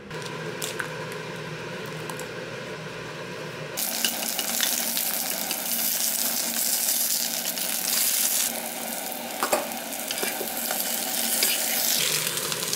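An egg frying in a nonstick pan, sizzling and spitting steadily. The sizzle starts suddenly about four seconds in and cuts off near the end, with a metal spatula clicking and scraping against the pan a few times.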